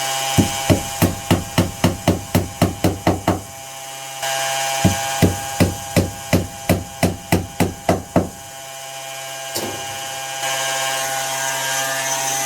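Hand pump worked in quick strokes: two runs of about ten sharp knocking strokes, about three a second, with a short pause between, over a steady hum.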